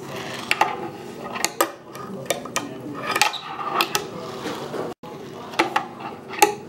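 A fingerboard on a wooden ramp: a run of sharp clicks and clacks as its tail pops and its metal trucks and small wheels land and roll on the wood, about a dozen in all, with a brief break about five seconds in.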